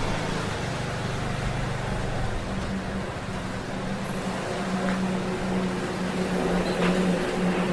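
Propeller-driven training aircraft's engine droning steadily over a wide noise; the low drone changes pitch about two and a half seconds in and then pulses.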